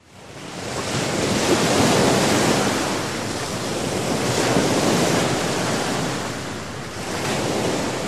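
A steady rushing noise, like surf or wind, fading in over the first second or so and then swelling and ebbing slowly.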